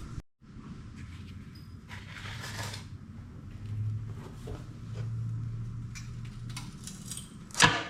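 Metal hardware clinking and tools being handled while wheels are bolted onto a portable generator frame, with a low hum in the middle and one sharp metallic knock near the end.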